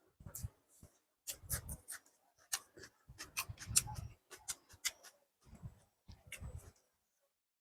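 Close-miked chewing of soft rice and chicken curry, with irregular wet mouth and lip smacks and clicks.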